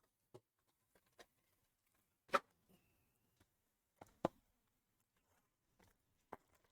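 Scattered light clicks and taps, about six in all with the two loudest near two and four seconds in: trading cards and their plastic packaging being handled on a table.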